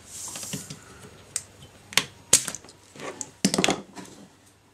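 Scattered sharp clicks and taps from desoldering tools and a circuit board being handled on a workbench while the solder holes are cleaned out, with a brief soft hiss near the start and a quick cluster of clicks about three and a half seconds in.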